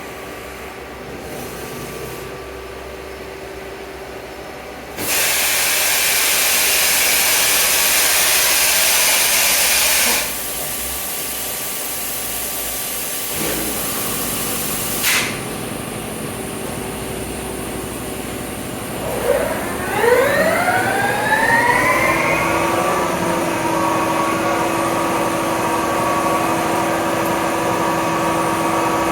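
Johnford ST40HX CNC turning center running. A loud hiss lasts about five seconds, then the spindle spins up with a rising whine that levels off into a steady running hum.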